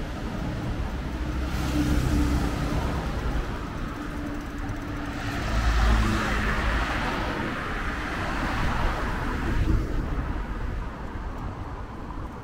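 Road traffic: cars passing one after another, each rising and fading, the loudest going by about six seconds in.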